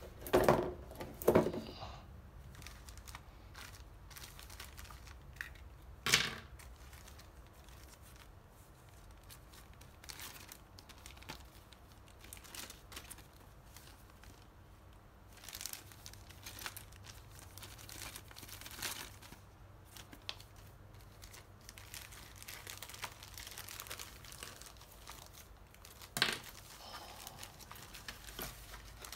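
Clear plastic bags of model-kit parts crinkling and rustling as they are handled, with louder bursts of handling noise twice near the start, once about six seconds in, and once near the end.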